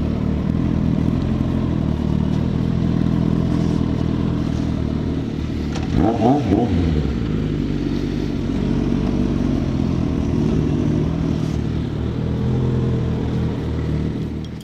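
Suzuki GSX650F's inline-four engine running steadily at low revs as the bike rolls slowly, with a brief rise and fall in pitch about six seconds in.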